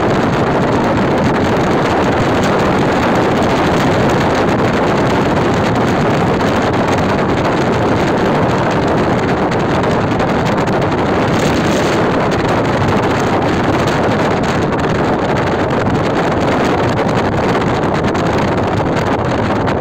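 Steady wind rushing over the microphone of a phone held at a moving car's side window, with the car's tyre and engine noise underneath.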